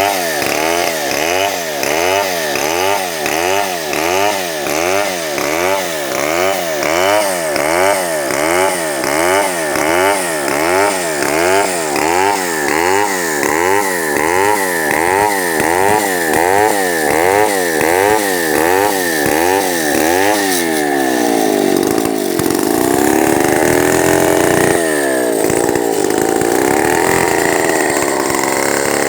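Two-stroke chainsaw engine revved up and down over and over in a steady rhythm, then running at a steadier, more even speed for the last third.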